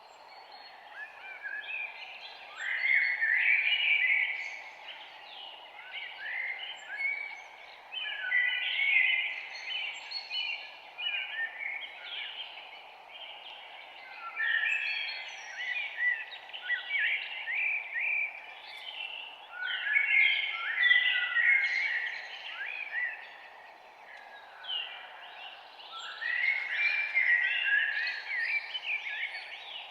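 Songbirds singing in bursts of quick chirping phrases, one every four to six seconds, over a steady background hiss of forest ambience.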